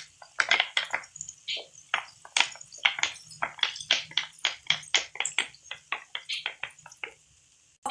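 Soy sauce poured into a hot nonstick kadai of frying chicken, crackling and spitting in irregular pops several times a second, then fading out near the end.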